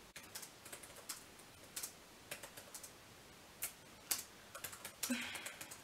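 Typing on a laptop keyboard: irregular, light key clicks with short pauses between runs.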